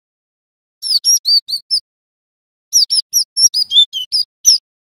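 Cinereous tit (gelatik batu) singing: a short burst of about five quick, high, downslurred notes about a second in, then after a pause a longer, faster run of such notes with a few lower ones mixed in.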